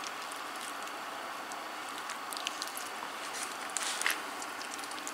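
Soft wet squishes and light clicks of hands rolling a raw marinated chicken breast around carrot, eggplant and cheese sticks on a plastic cutting board, over a steady background hiss.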